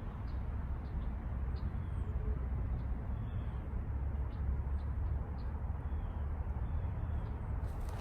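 Outdoor ambience: a steady low rumble under faint, repeated high bird chirps, with a sharp click just before the end.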